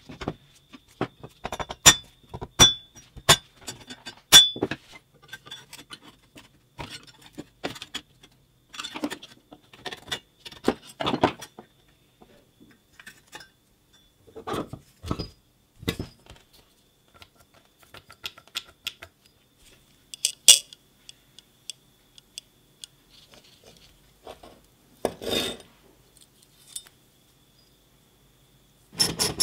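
Metal parts of an old electric motor clinking, tapping and knocking as it is taken apart by hand on a wooden workbench: scattered light metallic clicks, a few sharper, with one ringing clink about twenty seconds in.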